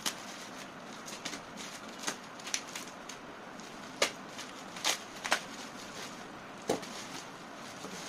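Bubble-wrap packaging being cut open with a box cutter and pulled apart: soft crinkling of the plastic with several sharp, scattered snaps and pops.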